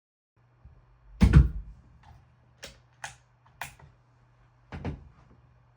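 A heavy thump about a second in, then four short, sharp clicks spread over the next few seconds, over a steady low hum.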